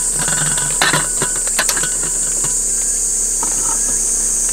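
Steady hiss of a lit single-burner camping gas stove, with a few light metal clicks and clinks as an aluminium pot is set on it and the burner knob is adjusted.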